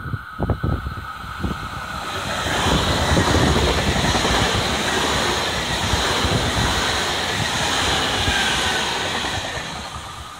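JR Central 383 series limited express Shinano electric train passing through the station at speed: a few rhythmic clacks of the wheels over rail joints at first, then a loud rush of wheel and running noise for several seconds that fades as the train draws away near the end.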